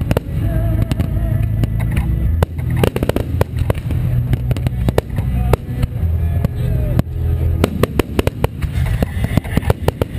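Aerial fireworks shells bursting in quick succession, many cracks and booms close together over a continuous low rumble.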